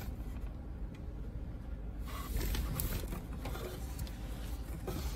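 A flathead screwdriver working at a plastic wire-holder clip, squeezing it from both sides to free it. Light rubbing with a few small clicks.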